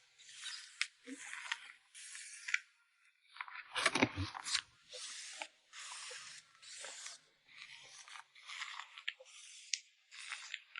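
Photocards being packed by hand: repeated short crinkles and rustles of plastic sleeves and wrapping, about one or two a second, with a louder, fuller crinkle about four seconds in.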